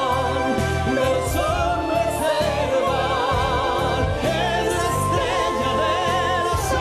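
A song with a singing voice held in long, wavering notes over a steady bass beat.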